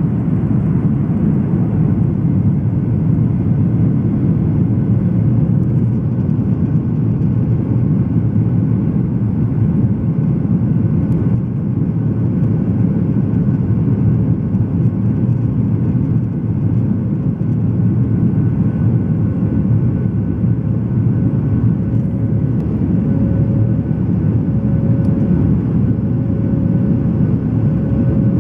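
Jet engines of a flydubai Boeing 737 running at high power during takeoff: a loud, steady rushing noise. A faint steady whine sits under it and grows stronger, pulsing about once a second near the end.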